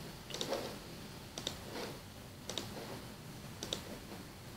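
Computer mouse button clicking, a quick press-and-release pair about once a second, four times.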